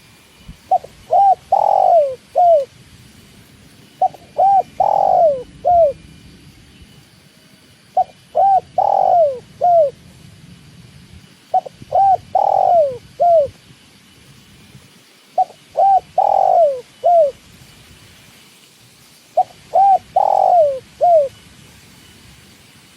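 Spotted dove (tekukur) cooing its song six times, about every four seconds. Each phrase is a few short coos around a longer, louder coo that falls in pitch.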